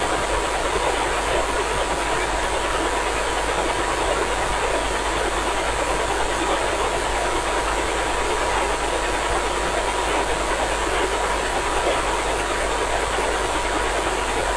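Radio receiver static: a steady hiss from a software-defined radio tuned to the ISS 2-metre downlink in sideband mode, with the station's signal faded out. A steady thin whistle tone runs through the hiss.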